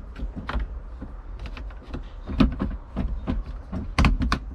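Deutz Agrotron 100 hydraulic control lever clicking and clunking as it is worked through its positions, about seven irregular sharp clicks over a low steady rumble.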